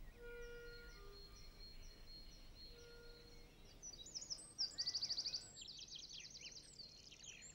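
Songbirds singing faintly, with a fast trill about halfway through followed by a quick run of falling notes. Soft sustained music notes fade out during the first few seconds.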